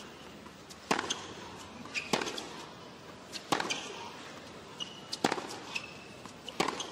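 A series of sharp, irregularly spaced knocks, like a ball bouncing and being struck, some with a brief ringing ping, over a steady hiss.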